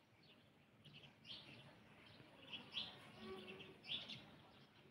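Faint chirps of small birds: short high calls repeated at irregular intervals, about one every second or so.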